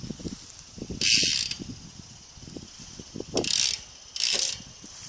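BMX rear hub freewheel (a Shadow Conspiracy Raptor) buzzing as the rear wheel coasts or is turned backward, its pawls ratcheting in three short, pretty loud bursts: about a second in, and twice more near the end.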